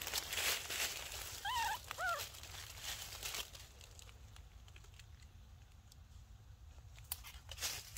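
A baby monkey gives two short squeaky calls about a second and a half in, over the crinkling and tearing of a banana being peeled.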